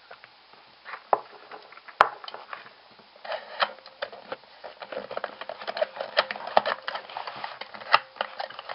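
Plastic clicking and clattering of a Hollywood Nails nail-art stamping machine being pushed and worked by hand: one sharp click about two seconds in, then a dense run of clicks from about three seconds on, as the mechanism catches and sticks.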